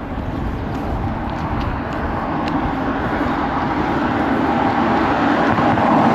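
A vehicle passing on the road, its tyre and engine noise growing steadily louder to a peak near the end, then starting to fade.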